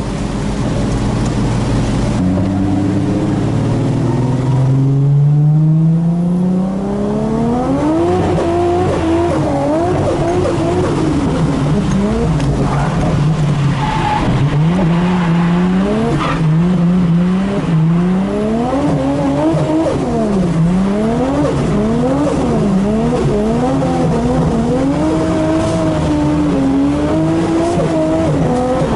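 Nissan Skyline R33's turbocharged RB25DET straight-six heard from inside the cabin: it climbs steadily in revs for several seconds, then the revs swing rapidly up and down as the throttle is worked through a drift.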